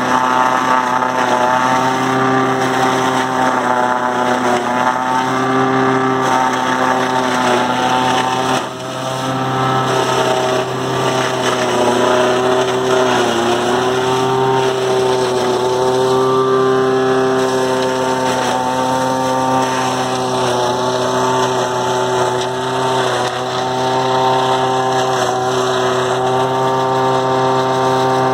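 Tractor engine driving a PTO forage chopper that is cutting whole corn plants and blowing the chopped silage out of its spout: a loud, steady mechanical drone whose pitch wavers and sags slightly as stalks are fed in, with a brief drop in level about nine seconds in.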